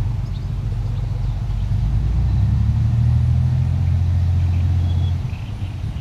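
An engine running with a low, steady rumble, growing louder about two seconds in and dropping away abruptly just after five seconds.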